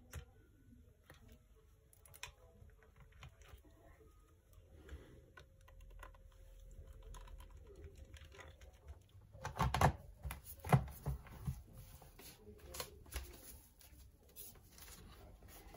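Faint handling noise, then a cluster of light, sharp plastic clicks and taps about ten seconds in, as a laptop battery is set into the open chassis and seated.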